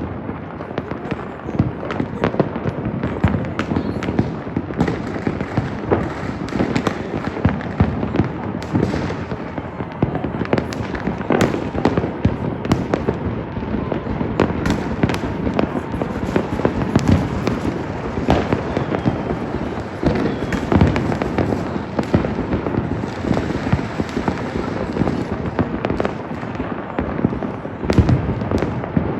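Fireworks and firecrackers going off without pause: a dense, continuous crackle of many overlapping bangs and pops.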